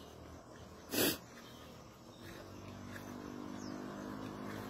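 A short sharp breath through the nose about a second in, the loudest sound here, followed by a low steady drone of even, unchanging tones that grows slowly louder.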